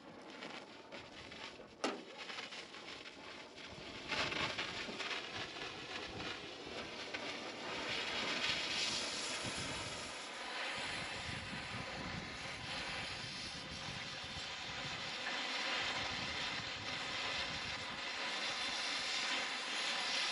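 Cutting torch running with a steady hissing roar as it cuts through a seized combine bearing, growing louder about four seconds in. Two sharp clicks sound near the start.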